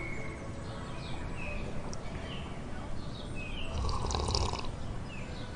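Small birds chirping, short repeated chirps about once or twice a second over a low steady background. A brief burst of noise about four seconds in.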